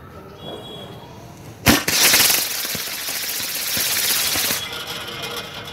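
Diwali firework rockets chained together on a wire and spinning round: a sharp bang about a second and a half in, then a loud hissing rush of burning rocket propellant for about three seconds, which eases to a fainter hiss near the end.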